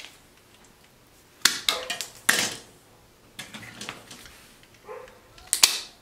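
Sharp clicks and scrapes of wire, insulated spade connectors and a hand wire crimper being handled, coming in three short clusters.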